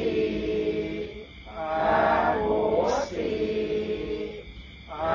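Buddhist chanting: long held, pitched vocal syllables in phrases of a second or so, each sliding down in pitch, with short breaks between.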